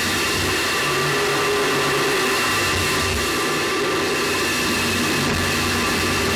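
Steady roaring rumble picked up by the onboard camera on a space shuttle solid rocket booster, with a few faint steady whistling tones running through it.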